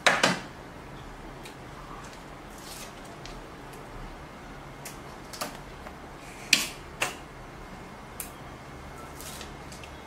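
Hands handling small lock-kit parts and double-sided tape on a tabletop: a sharp clatter at the start, then scattered clicks, two of them loud about two-thirds of the way in, and a few short rustles, over a steady background hiss.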